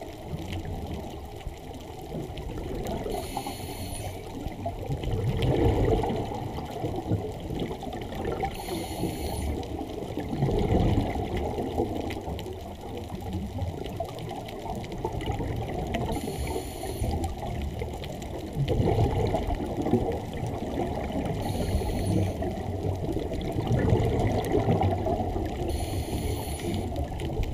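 Scuba diver breathing through a regulator, heard underwater: a short hiss from the regulator on each inhale, then a low bubbling rumble as the exhaled air escapes, about five breaths at a slow, even pace.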